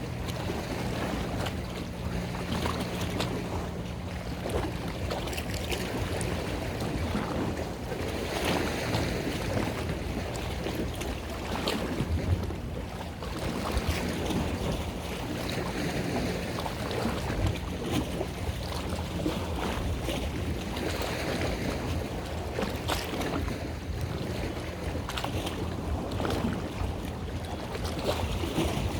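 A boat's engine running steadily, with water splashing and wind buffeting the microphone.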